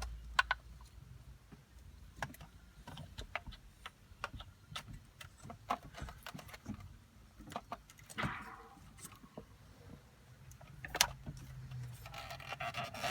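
Scattered light clicks, taps and rattles as a car stereo head unit and its wiring harness are handled in the dashboard, with a brief rustle about eight seconds in.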